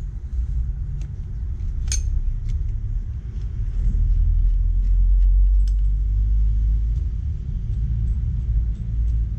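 Low, steady rumble, loudest in the middle, with a few light metallic clinks from a bicycle crank arm and crank puller being handled; the sharpest clink comes about two seconds in, as the crank arm comes free of the frame.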